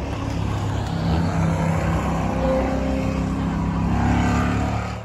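Ford Crown Victoria-class stock cars' V8 engines running around a short oval track, growing louder near the end as a car comes through the turn.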